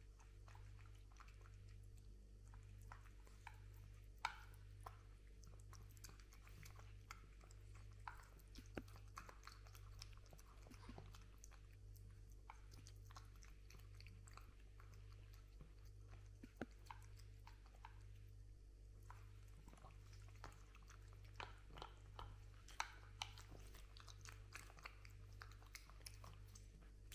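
Cat eating from a bowl: faint, irregular crunching and chewing as it takes food, with a few sharper crunches, over a steady low hum.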